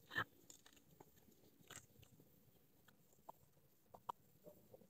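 Biting into and chewing crunchy young kedondong (ambarella) fruit: one bite right at the start, then a few faint crunches and mouth clicks over near silence.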